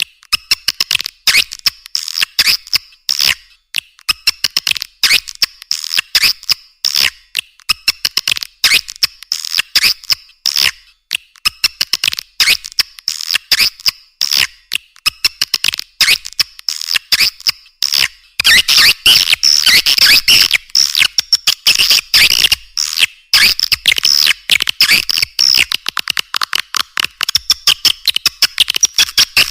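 Recorded swiftlet calls used as a lure to draw swiftlets into a nest house: a dense run of rapid, high-pitched chirps and clicks with nothing low. It grows denser and louder about two-thirds of the way through.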